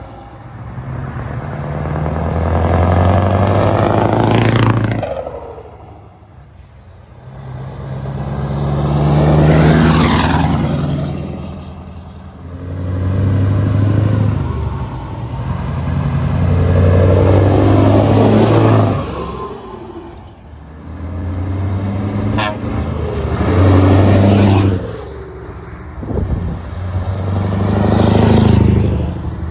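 Heavy diesel truck tractor units driving past one after another, each engine swelling and fading as it goes by, about six passes. Near the end a classic Scania 143H with its V8 engine comes past.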